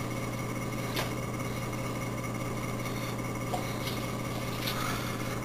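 Room tone: a steady low hum, with a faint click about a second in and another about three and a half seconds in.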